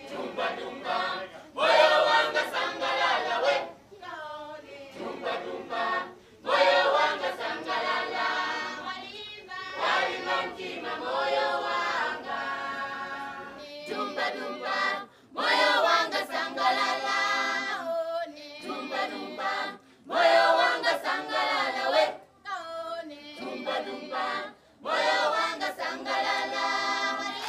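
A choir of children and young people singing together, in phrases of a few seconds each separated by short breaks.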